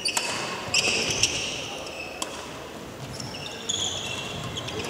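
Badminton rally: players' court shoes squeaking in short, high chirps on the wooden hall floor as they move, with a few sharp racket strikes on the shuttlecock.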